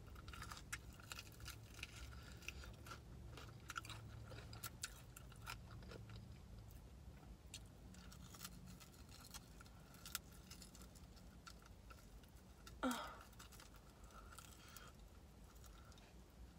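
Quiet, close-up chewing of a chicken wing, made up of many small wet mouth clicks. A brief louder mouth sound, falling in pitch, comes about thirteen seconds in.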